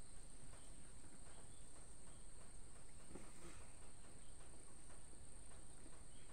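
A person eating with his fingers and chewing a mouthful of chicken and rice, making small wet clicks and smacks, over a steady high-pitched whine in the background.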